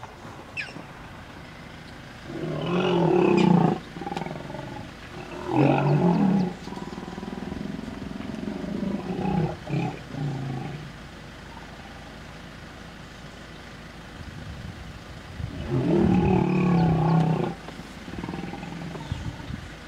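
Hippopotamuses making deep, loud roaring calls in four bouts, each a second or two long, with quieter spells between. These are threat calls between two hippos squaring up in the water, one defending its young.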